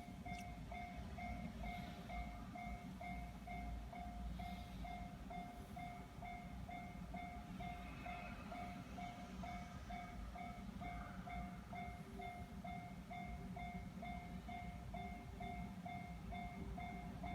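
Japanese level crossing warning bell ringing steadily, an electronic ding repeating about twice a second, over a low rumble.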